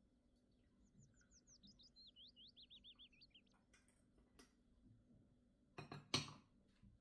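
A small bird sings faintly, a quick trill of repeated high falling whistles lasting about two seconds. Near the end a porcelain teapot is set down on a plate with two sharp clinks.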